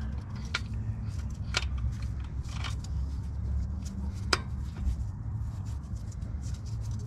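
A few sharp metallic clicks and clinks of engine parts being handled as a connecting-rod bearing cap is fitted back onto its rod, over a steady low hum.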